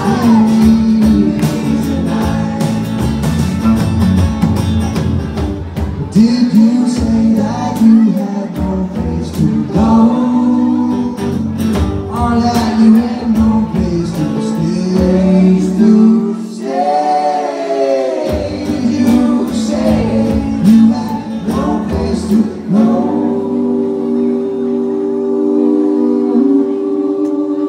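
Live band music: banjo, acoustic guitar and drums playing, with voices singing over them. Near the end the voices hold long steady notes.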